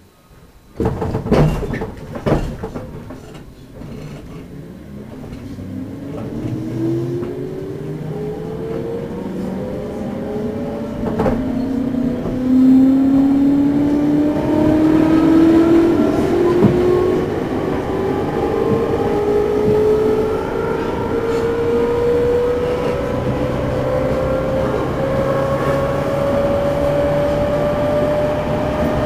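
Interior of a JR Central 211 series electric motor car, KuMoHa 211-5612, pulling away from a stop: a few loud clunks as it starts off, then the traction motors and gearing whine in several tones rising steadily in pitch as the train gathers speed. This car is one known for an unusually loud, abnormal motor noise.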